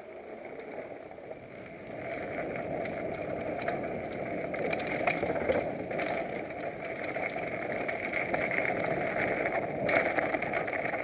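Mountain bike rolling fast down a rocky dirt trail and onto gravel: a steady rush of tyre noise with frequent clicks and rattles as the bike clatters over stones, louder from about two seconds in.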